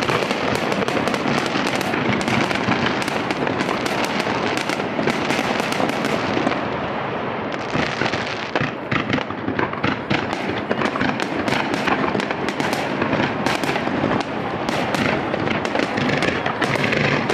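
Aerial fireworks going off in quick succession: a dense run of bangs over continuous crackling. It thins out for a moment about seven seconds in, then picks up again.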